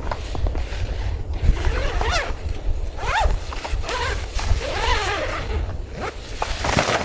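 A zipper pulled in several rasping strokes, its pitch rising and falling with the speed of each pull, over a steady low rumble of wind.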